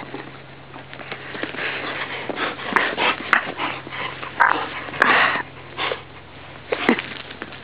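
A dog sniffing and breathing hard close up, in a run of short noisy bursts, with a few sharp clicks in between.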